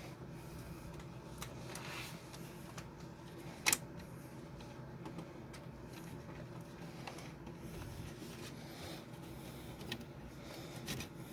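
Light clicks and rustles of hands working wiring and small parts inside an electric tankless water heater, with one sharp click nearly four seconds in, over a faint steady hum.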